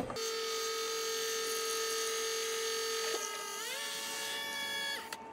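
Nespresso VertuoPlus capsule coffee machine brewing an espresso: a steady, high motor whine from the machine spinning the capsule. The whine steps up in pitch about three and a half seconds in and stops just before the end.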